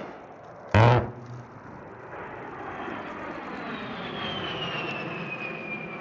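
About a second in, a short, very loud buzzing burst from the A-10's GAU-8 Avenger 30 mm rotary cannon. After it, the jet noise of the A-10 Thunderbolt II's twin turbofan engines builds as the aircraft passes overhead, with a high whine that falls steadily in pitch.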